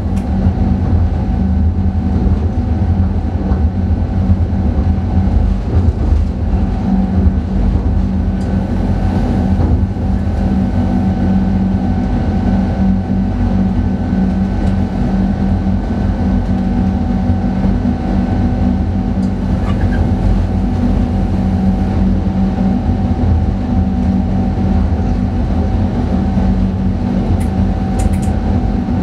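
Train running at speed, heard from inside the driver's cab: a steady low rumble with a constant hum on top, unchanged throughout. A few faint ticks come near the end.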